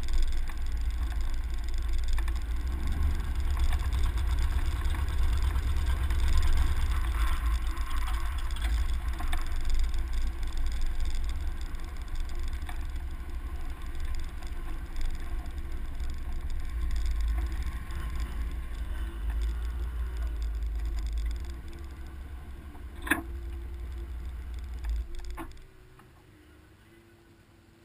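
Off-road truck driving over a sandy track, heard from a camera mounted low on its door: a deep wind rumble on the microphone over the engine and tyre noise. The noise eases off about three-quarters of the way through, a single sharp click follows, and near the end it falls away to a faint steady hum as the truck comes to a stop.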